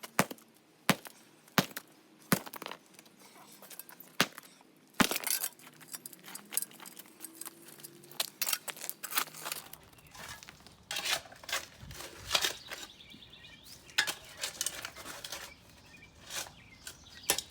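Sharp, irregular knocks and clinks of broken concrete slab being busted up and its chunks handled, hard concrete striking concrete, steel tools and the slab's wire mesh. The strikes come a second or so apart at first, then crowd closer together in the second half.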